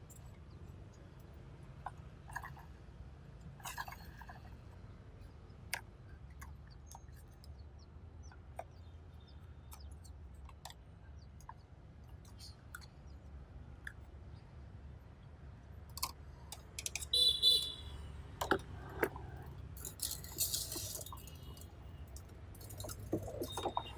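Scattered small clicks and knocks, as of plastic toy vehicles being handled, with a denser run of clicking and rattling near the end, over a low steady hum.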